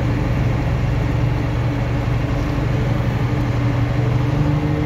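Unimog truck's engine and drivetrain running steadily, heard from inside the cab as a loud, even low hum; a higher tone joins in near the end.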